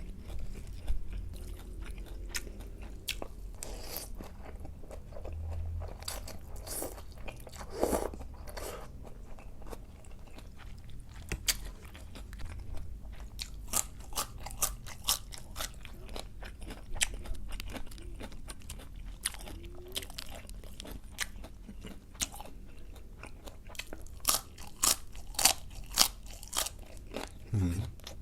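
A person chewing and biting crunchy food close to the microphone, with many short, sharp crunches that come thicker and louder near the end.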